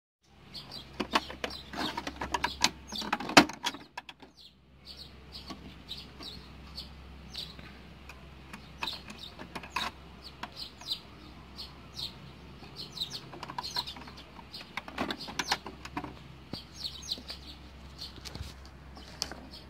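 Many short, high chirps and clicks scattered over a steady low hum, with a loud cluster between about one and three and a half seconds in.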